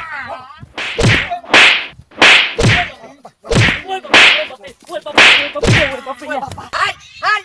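A run of about eight loud whip-crack and whack sound effects, each with a short swish, roughly every half second to second, standing in for blows of a wooden stick. There are brief cries between the cracks.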